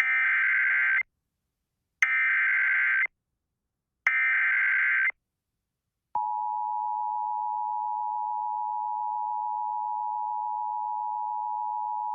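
Emergency Alert System SAME header: three one-second bursts of warbling digital data tones, a second apart, announcing a new alert. About six seconds in, the steady EAS attention signal tone starts and holds.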